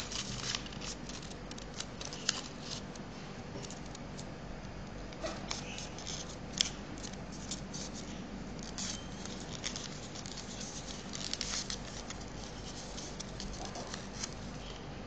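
A sheet of origami paper being folded and creased by hand, giving irregular crinkles and rustles.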